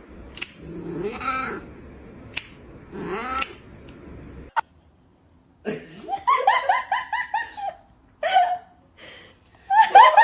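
Cat meows mixed with a person laughing in quick repeated bursts. The sound drops out suddenly about halfway through.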